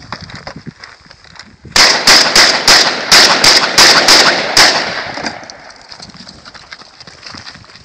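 Shotgun fired in a rapid string, about nine shots in under three seconds, starting nearly two seconds in. Echo trails off after the last shot.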